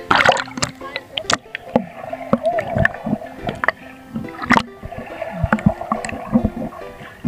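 Pool water splashing and gurgling around a camera as it dips below the surface, with irregular sharp clicks and knocks, the loudest just after the start and about four and a half seconds in. Background music plays underneath.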